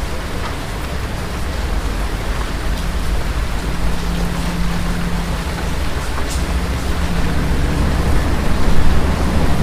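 Steady rain with low rolling thunder, the rumble slowly building and loudest near the end.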